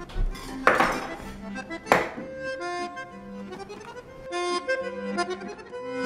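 Instrumental background music, with two sharp scrapes of steel knife blades drawn against each other in the first two seconds. The music changes about four seconds in.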